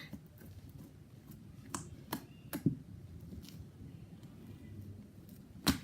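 Slime being worked in the hands to make bubbles, giving a few sharp clicks and pops, the loudest one near the end.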